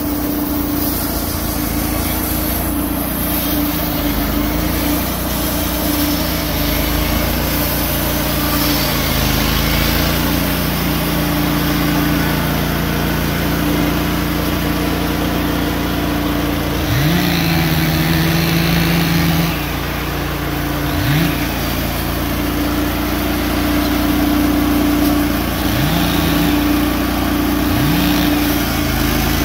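Wood-Mizer LT15 GO portable bandsaw mill's gas engine running steadily, revving up four times in the second half, the first time held for a couple of seconds.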